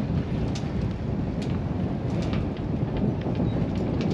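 Wind buffeting the microphone: a steady low rumble, with a few light clicks about a second apart.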